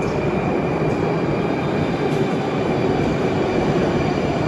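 Moscow metro train running between stations: a steady loud rumble of the ride with a thin, steady high whine over it.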